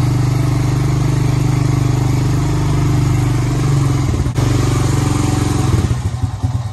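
An old utility ATV's engine running steadily as it drives in, with a brief break about four seconds in. Near the end it drops to an uneven, pulsing idle.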